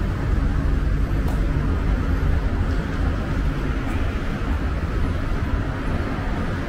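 Steady road traffic: the hum of vehicle engines and tyres on a city street, with a low engine drone underneath.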